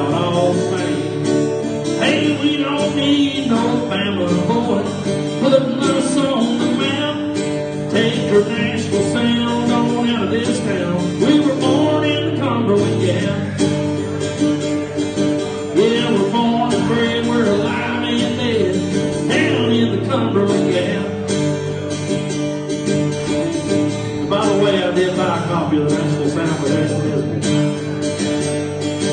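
Two acoustic guitars playing a country song live, an instrumental break with strummed chords under moving melody lines and no singing.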